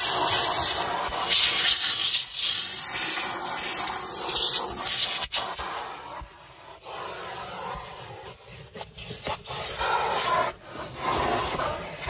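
Numatic Henry cylinder vacuum cleaner running, air rushing in through its hose and wand as the nozzle sweeps over leather car seats and the centre console. The rush is loudest for the first few seconds, then drops and wavers from about the middle as the nozzle is moved and pressed against the upholstery.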